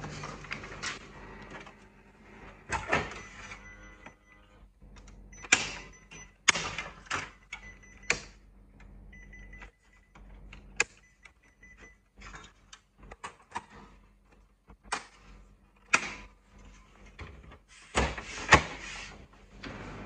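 Irregular sharp clicks and clunks of a Kyocera 4002i copier's plastic and metal covers and internal parts being opened, handled and shut by hand.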